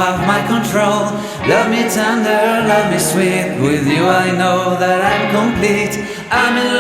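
Background song: a singing voice over sustained instrumental chords, bass and a light beat.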